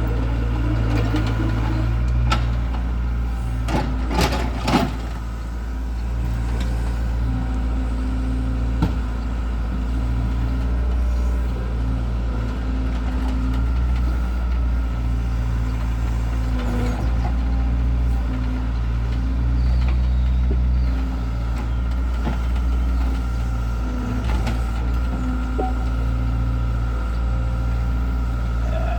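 Excavator's diesel engine running steadily, its sound swelling and easing as the digging load changes. A few sharp knocks come about four to five seconds in.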